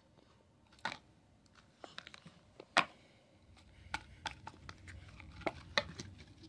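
Plastic slime tubs being handled and opened: scattered clicks and crackles of plastic, the sharpest about three seconds in, with a low rubbing of handling in the second half.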